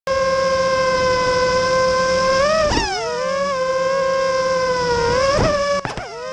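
Motor and propeller whine of a radio-controlled aircraft heard from its onboard camera: a loud, steady high whine that cuts in suddenly. It dips sharply in pitch and comes back up three times, near the middle and twice near the end, as the throttle is changed.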